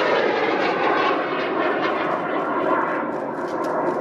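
Rocket motor of a student sounding rocket roaring as it climbs, heard from the ground as a steady rushing noise that eases a little near the end.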